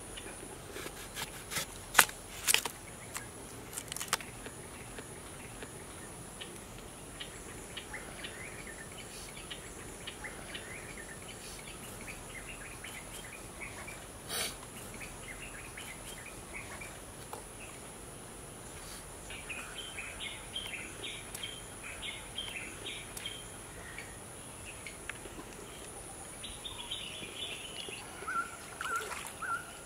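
A knife chopping into a green coconut: a few sharp strikes in the first few seconds, and one more knife strike about fourteen seconds in. Underneath, a steady high insect hum, with birds chirping in quick repeated runs through the second half.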